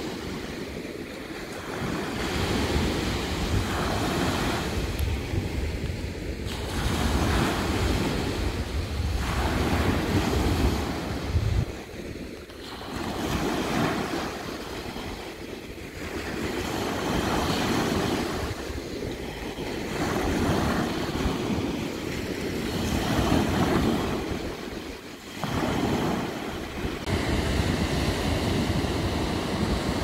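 Small sea waves breaking and washing up a sandy beach, the surf swelling and fading every few seconds. Wind rumbles on the phone's microphone through the first ten seconds or so.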